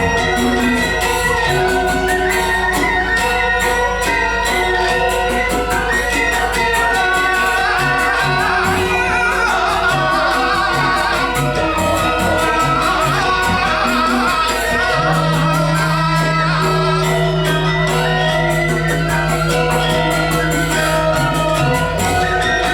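Balinese gamelan playing a dance piece, with dense rapid strikes on tuned metal instruments over steady sustained notes. A low note is held for several seconds over the last third.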